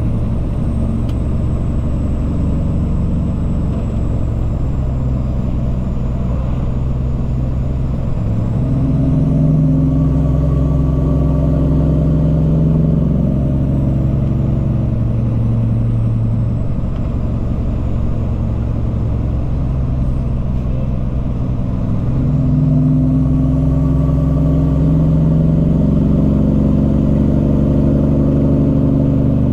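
Cummins ISX diesel of a Peterbilt 379 truck running under way. The engine note dips briefly and picks up again twice, about 8 and 22 seconds in.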